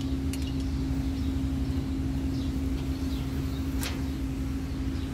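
Steady low drone of machinery running, a constant hum note over a deep even throb, with one light click nearly four seconds in.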